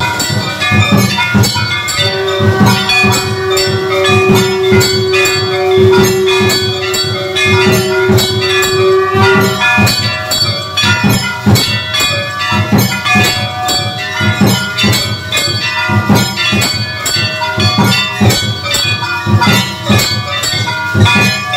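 Temple bells ringing fast and without a break during the aarti, many strikes overlapping. A single long held note sounds over them from about two seconds in until nearly ten seconds.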